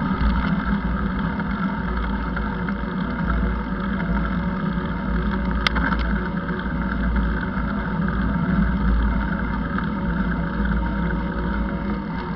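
Steady wind noise and low rumble picked up by a camera riding along a paved bike lane, with one sharp click about five and a half seconds in.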